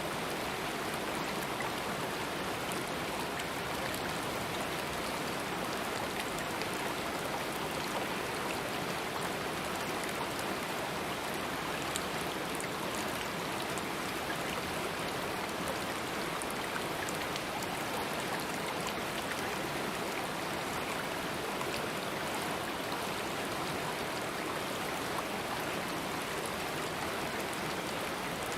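Running water of a stream, a steady even rush with faint scattered ticks throughout.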